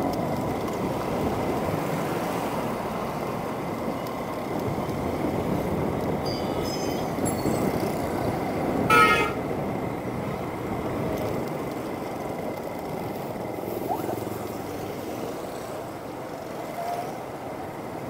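Steady road-traffic and engine noise in busy street traffic, with a vehicle horn honking once, briefly, about nine seconds in.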